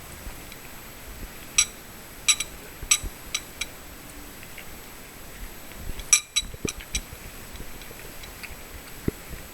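House cat eating cat food: a series of sharp clicks, about five over two seconds starting a second and a half in, then another quick cluster about six seconds in.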